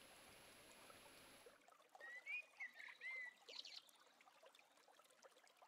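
Faint nature recording at the opening of an ambient track: a few short bird chirps about two seconds in, over soft trickling water.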